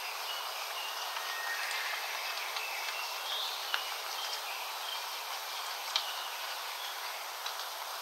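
Wild forest birds calling: scattered short, high whistled notes over a steady hiss, with a couple of sharp ticks.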